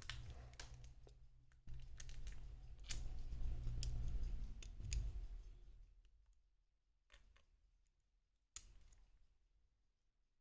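Light clicks and taps of small parts being handled as a new battery is fitted into the frame of a Xiaomi Mi Max 3 phone. A low rumble of handling runs under the first half and fades out, then a couple of single clicks follow.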